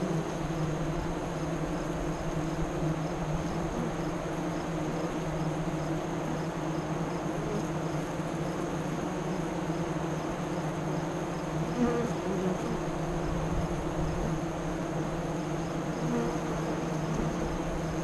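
Many honey bees buzzing at a hive entrance: a steady, even hum from the crowd of bees, with a few louder buzzes here and there as single bees fly close past, one about twelve seconds in.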